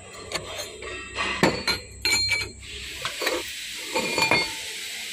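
Steel clutch plates from a crane clutch pack clinking and knocking against one another as they are handled, several knocks with a short metallic ring. A steady hiss comes in about halfway through.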